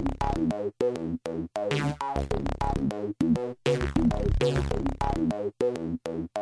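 Electronic synthesizer music with a drum-machine beat, chopped into short stabs that cut off suddenly several times a second.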